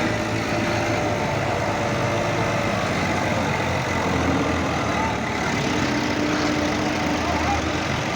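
Combine harvester's diesel engine running at a steady speed.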